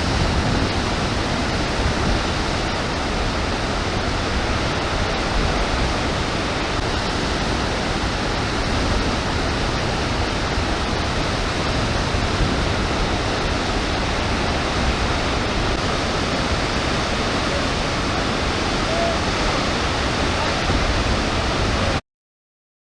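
The Orange River in flood crashing down over Augrabies Falls: a steady, dense rush of water that cuts off abruptly near the end.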